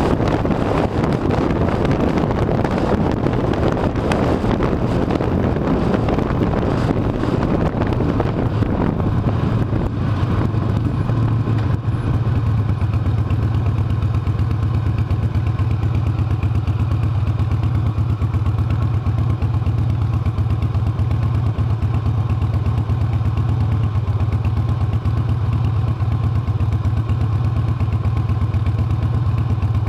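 Harley-Davidson V-twin motorcycle engine running, with wind rushing over the microphone at first. About ten seconds in the wind noise dies away and the engine's steady low running is left alone.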